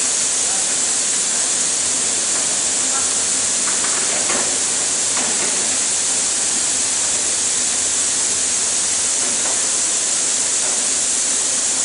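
Steady high-pitched hiss, with faint voices in the background.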